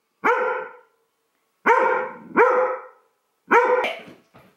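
A large dog barking four times, each bark about half a second long and falling in pitch, with the middle two close together.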